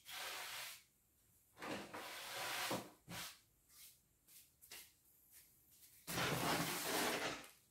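Bursts of rubbing and scraping as things are handled, the longest and loudest about six seconds in as a large plastic-wrapped cardboard shipping box is slid and set down on the floor.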